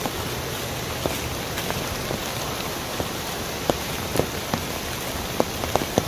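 Mountain stream rushing over rocks in a steady hiss, with irregular bright water plinks and splashes that come more often in the second half.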